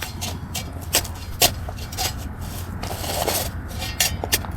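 Shovel digging into hard ground: the blade scraping through the soil, with several sharp hits, about a second in, again half a second later, and twice near the end.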